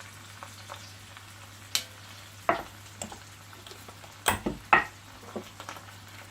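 Onion and vegetables sizzling in oil in a cooking pot, with a spoon stirring and knocking against the pot several times, the loudest knocks about four and a half seconds in.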